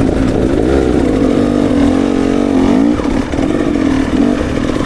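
KTM enduro dirt bike engine running, its pitch rising and falling with the throttle, with a brief dip about three seconds in.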